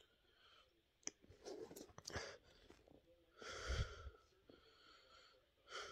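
A person crying quietly: sniffling and shaky breaths, with the heaviest sob about three and a half seconds in and another just before the end.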